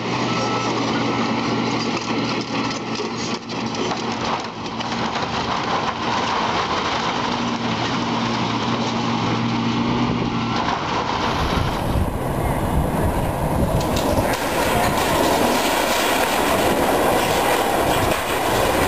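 Heavy demolition machinery running, with a steady engine hum. About eleven seconds in, this gives way to a louder, rougher rumble with clatter.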